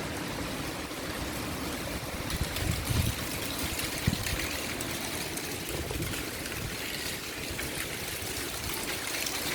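Storm wind rushing steadily during a windstorm, with gusts buffeting the microphone in low thumps around three and four seconds in.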